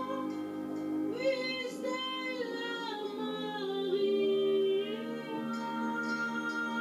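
Wind band with tubas and baritone horns playing sustained chords while a woman sings a slow melody over them. Her voice comes in about a second in and holds a long note until about five seconds in.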